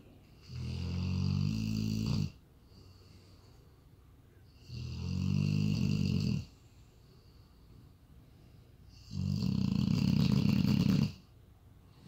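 A sleeping dog snoring: three long, buzzing snores, each about two seconds, coming about every four seconds, the last one the loudest.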